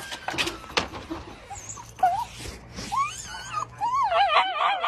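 A dog whining and whimpering in wavering, up-and-down cries. They begin about two seconds in and run together more and more toward the end.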